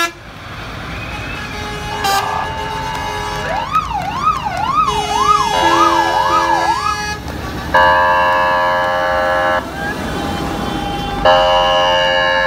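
Fire engines passing in convoy, sounding their sirens: a short horn blast about two seconds in, then a siren sweeping up and down about twice a second, followed by two long steady horn blasts, over a constant low engine rumble.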